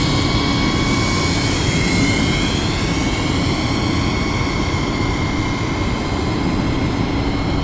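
ProtoFPV P3C cinewhoop drone's motors and propellers whining in flight, the higher tones gliding up and down as the throttle changes, over a steady low rumble.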